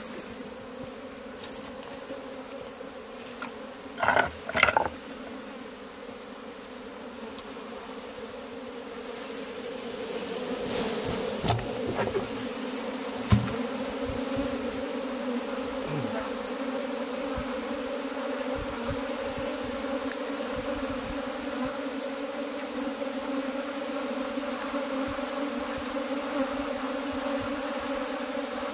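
A mass of honey bees buzzing as a steady hum, which grows louder about ten seconds in. There are two short, loud noises about four seconds in.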